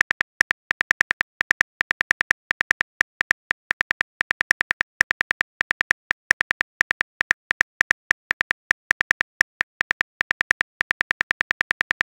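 Virtual phone keyboard typing clicks from a chat-story app: rapid, short, fairly even taps, about five or six a second, with a few brief pauses.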